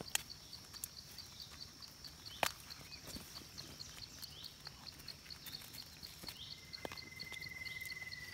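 Forest ambience: a faint high insect chirping pulses steadily about five times a second, and a few sharp clicks come from a hand picking a mushroom out of the leaf litter. From about two-thirds of the way through, a thin steady high tone joins in.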